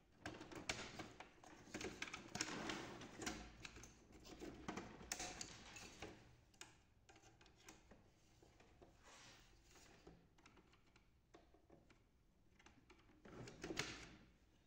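Faint plastic clicks and scraping as a laser printer's plastic rear cover is pried off its tabs with a flat screwdriver and lifted away, over the first six seconds. A brief rattle of handling comes near the end.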